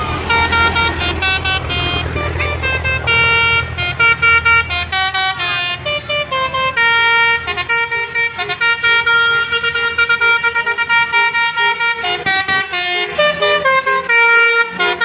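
Telolet horn, the multi-tone musical air horn of an Indonesian bus, playing a fast tune of short notes with several pitches sounding at once. A deep engine rumble runs under it for the first few seconds.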